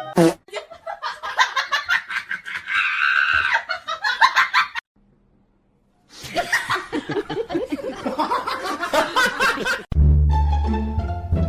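People laughing hard in rapid bursts, broken by about a second of silence at a cut, then more laughter; background music with a strong bass line starts abruptly near the end.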